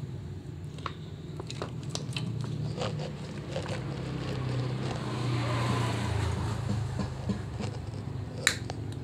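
Side-cutting pliers snipping through wiring-harness wires: a series of sharp clicks spaced irregularly, the loudest near the end. Under the snips is a steady low hum that grows louder in the middle.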